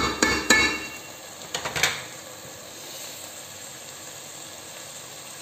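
A wooden spatula knocking sharply against a metal rice cooker pot several times in the first two seconds, then the faint steady sizzle of rice frying in ghee.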